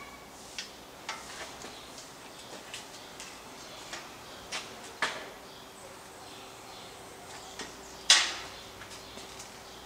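Scattered light knocks and clicks from handling welded steel-tube tail-surface frames, with a sharper knock about eight seconds in.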